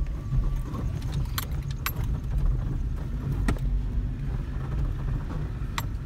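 A car driving slowly over a rough, unpaved dirt road, heard from inside the cabin. There is an uneven low rumble, and a few sharp clicks and rattles come as it jolts over the ruts.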